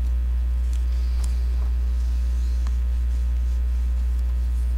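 Steady low electrical mains hum in the microphone feed, with a few faint ticks and rustles of paper being handled.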